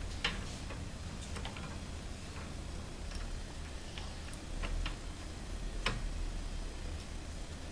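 Irregular sharp clicks and ticks, about ten in all, from a metal hand tool and clamp screw as a rod clamp is tightened on a tubular support frame. A steady low hum runs underneath.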